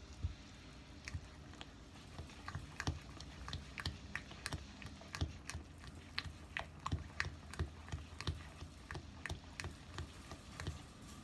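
Light, irregular clicks and taps of kitchen utensils, roughly two or three a second, over a low steady background hum.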